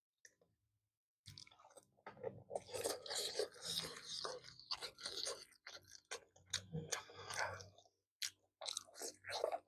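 A person chewing food, starting about a second in and going on densely for several seconds, then breaking into a few separate chews near the end.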